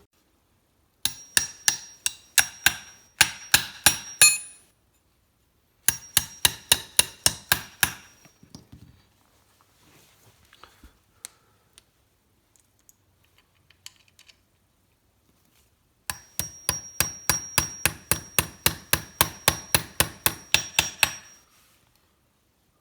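A hammer tapping lag bolts through the holes of a climbing stick, in three runs of rapid strikes (about four a second) with a metallic ring, and a pause of several seconds before the last and longest run. The hammering is needed because the stealth strip makes the bolts too tight to push in.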